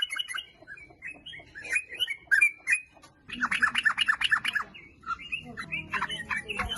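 Sooty-headed bulbul singing: quick runs of bubbly, chattering notes, with a dense burst about halfway through and more notes near the end.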